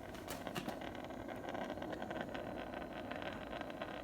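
Portable propane heater running just after lighting, its burner giving off a steady hiss of gas and flame. A few light clicks sound in the first second.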